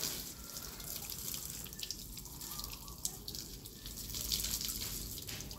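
A stream of water splashing onto freshly moulded concrete paving blocks and their wooden racks, a steady hissing splash flecked with small drips and spatters. It is the curing stage: the half-dry blocks are watered so that the cement binds stronger.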